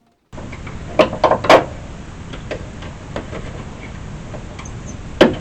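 A few sharp knocks and light clicks of metal hood-latch hardware and hand tools being handled, with a louder knock near the end.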